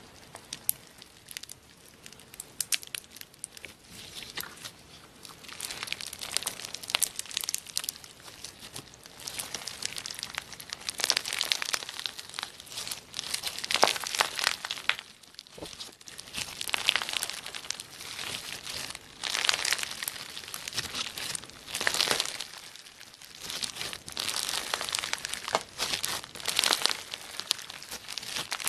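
Clear slime packed with small beads being squeezed, pressed and stretched by hand: dense, irregular crackling and clicking from the beads, coming in swells a second or two long.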